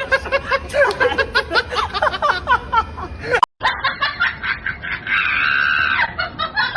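Laughter in quick, high-pitched bursts. After an abrupt cut about halfway through, more laughing follows, with a held high-pitched vocal cry of about a second.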